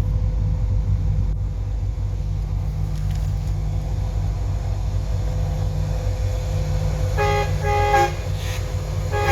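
A steady low rumble, then two short blasts of a multi-note train horn sounding a chord, with a third blast starting right at the end.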